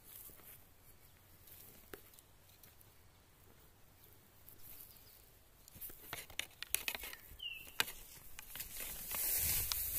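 Footsteps and rustling through thick grass, faint at first and louder from about six seconds in, with scattered clicks. There is one short falling chirp near the middle of that stretch, and heavier rustling with a low rumble near the end.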